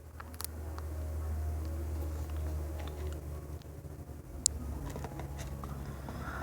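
Cockatiel cracking seeds in its beak: scattered small, sharp clicks of husks splitting, one louder click about four and a half seconds in, over a steady low rumble that eases after about four seconds.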